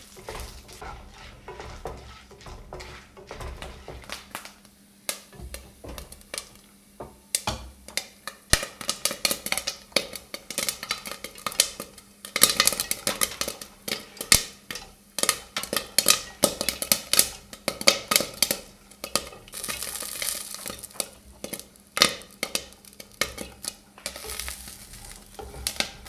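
Maize kernels frying in hot oil in a covered non-stick wok: a steady sizzle with sharp pops as the kernels burst into popcorn. The pops come sparse at first, thick and fast through the middle, then fewer near the end.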